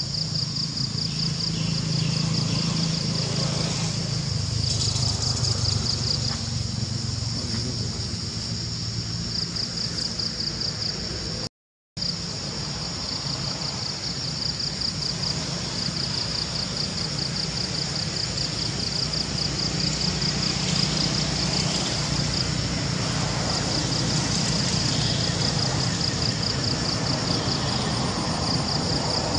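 Steady insect chorus, a high pulsing chirr, over a low steady rumble. The sound cuts out completely for a split second near the middle.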